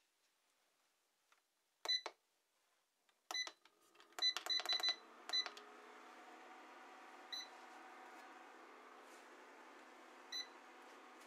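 Induction cooker's control panel beeping as its buttons are pressed: short, high beeps, singly and in a quick run of four or five. Soon after the run of beeps the cooker starts running, with a steady low hum and hiss that holds from then on.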